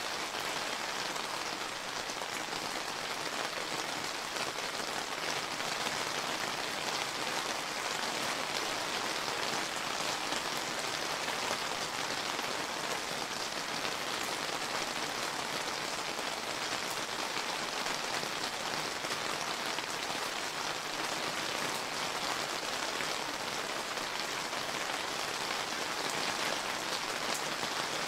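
Steady summer rain falling and pattering on surfaces, an even hiss of many drops without a break.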